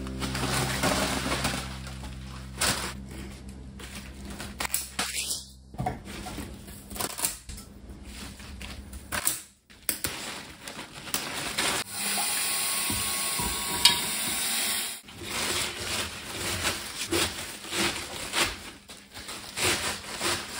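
Flower stems and wrapping paper being handled at a kitchen sink: irregular rustling, small knocks and clicks, with a tap running for about three seconds midway. Soft background music plays for the first several seconds and then stops.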